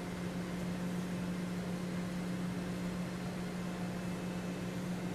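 Steady low hum under a constant even hiss: background room tone, with no distinct handling sounds.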